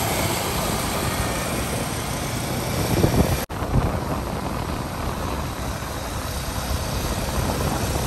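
Steady wind buffeting and rumble from riding a motorcycle, the rush of air on the microphone mixed with the engine and road noise. It breaks off for an instant about three and a half seconds in, then carries on the same.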